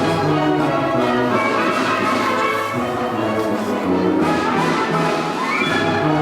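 Orchestral music with brass prominent, playing continuously as accompaniment to a ballet dance.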